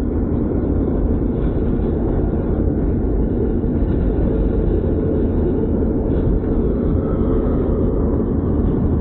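Steady road and wind noise of a car driving at highway speed, heard from inside the cabin, heaviest in the low rumble.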